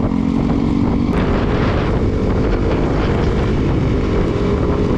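Motorcycle running at riding speed, its engine hum half buried under loud, steady wind rush on the microphone. The engine note changes about a second in.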